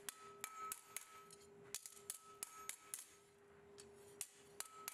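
Hand hammer tapping a hot steel ring on an anvil with light, uneven blows, about a dozen in all. Each blow leaves a ringing tone, and the anvil keeps up a steady ring between blows. The ring is being trued up just before its ends are forge-welded.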